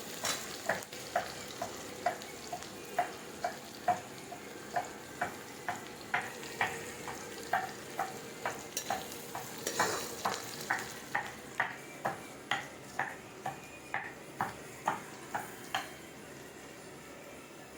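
Chopped onions frying in hot oil in a pan with a steady sizzle, while a spoon or spatula stirs them, knocking against the pan about twice a second. The knocking stops near the end.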